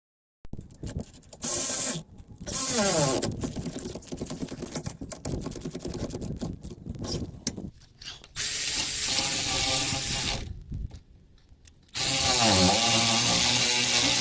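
Power drill-driver running in bursts of one to two seconds, its motor pitch sliding up and down as it works under load on stiff brake caliper fittings. Quieter rattling and scraping of tools and metal parts comes between the bursts.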